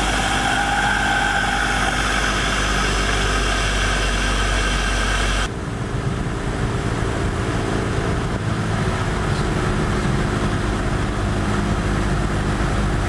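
Cessna 172 floatplane's piston engine and propeller running steadily, heard from inside the cabin in flight. About five and a half seconds in the sound cuts to a lower, quieter engine note, running slowly with the plane down on the water.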